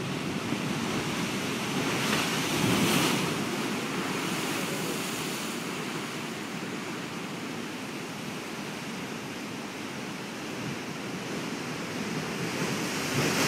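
Sea surf washing and breaking among eroded limestone rocks and churning in a rock chasm, a steady rush that swells louder about two to three seconds in and again near the end. Wind buffets the microphone.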